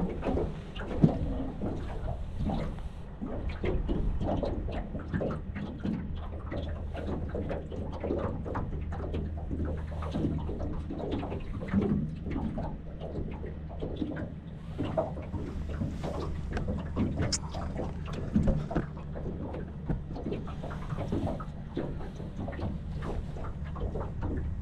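A boat engine running low and steady, with irregular knocks and splashes of water against the hull.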